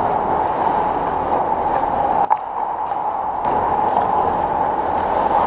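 Steady ice-arena background noise picked up by a goalie-mounted camera, with a single sharp click a little over two seconds in.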